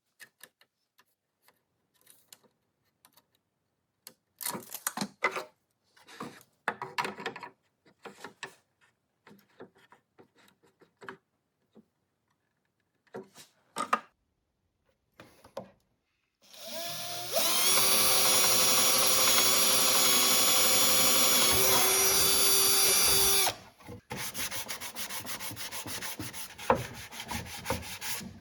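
Scattered knocks and clicks of wood and tools being handled, then a power drill spins up, runs steadily for about seven seconds and stops abruptly. A quieter, fast, even ticking follows.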